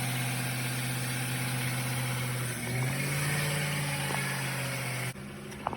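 1998 Ford F150's 4.6-litre Triton V8 idling steadily, running now that a new starter solenoid has cured its no-crank, no-start fault. About two and a half seconds in, the engine note dips briefly and picks back up, and near the end the sound drops away abruptly.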